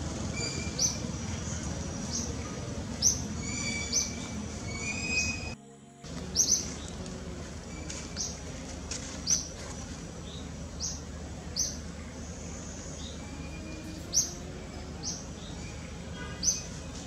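Wild birds chirping: short, sharp, high chirps every second or so, with a few thinner whistled notes, over a steady low background rumble. The sound cuts out completely for a moment about five and a half seconds in.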